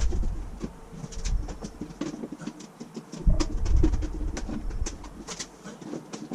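Scattered light clicks and knocks of hands working on the motorcycle's plastic panels and tools, with a low rumble of handling.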